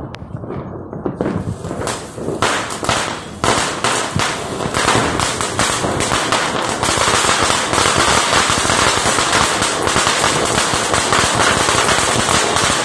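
Crackling anar (ground fountain firework) going off: a few scattered pops and sputters at first, then from about five seconds in a dense, steady hiss and crackle of spraying sparks that builds to full strength and keeps going.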